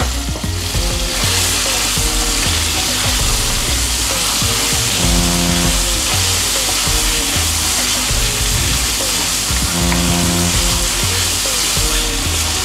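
Raw chicken pieces sizzling steadily in hot oil with crushed garlic in a frying pan, stirred and turned with a wooden spatula.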